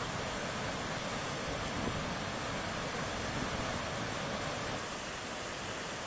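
Steady rushing of white water pouring over the rocks of a waterfall, a little quieter from about five seconds in.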